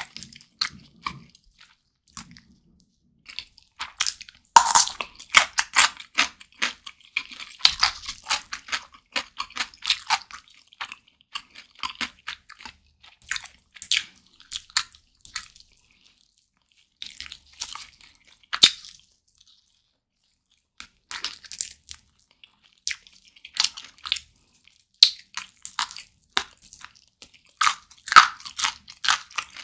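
Close-up ASMR eating sounds of biting and chewing meat off a barbecue-glazed roast chicken drumstick: runs of sharp, wet mouth clicks with a few short pauses.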